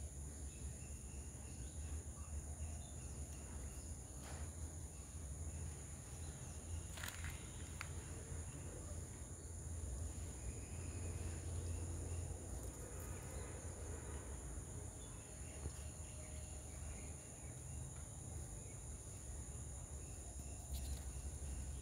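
Steady high-pitched insect chorus that holds at an even pitch throughout, over a low rumble, with a few faint clicks.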